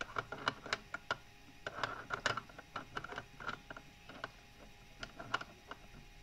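Hard plastic pieces of a SmartGames Zig Zag Puzzler clicking and knocking against each other and the plastic tray as they are handled and pushed into place, in irregular clusters of small sharp clicks.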